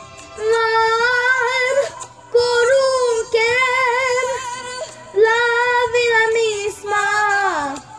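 A young girl singing a slow Spanish bolero solo, in three long held phrases with vibrato and short breaths between them. The last phrase slides down in pitch near the end. Quiet backing music plays under her voice.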